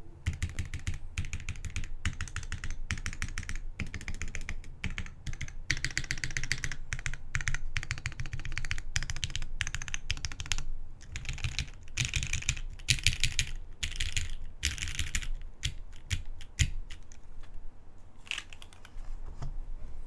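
Fast typing on a custom O-ring-mounted zekk.works Jennie TKL mechanical keyboard with an aluminum plate, lubed Gateron Ink Black linear switches and GMK keycaps: steady runs of keystrokes, thinning to a few scattered presses near the end.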